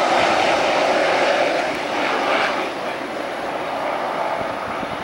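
Turboprop engines of a twin-engine, high-wing cargo plane running as it moves down the runway away from the listener, the sound dropping off about two and a half seconds in.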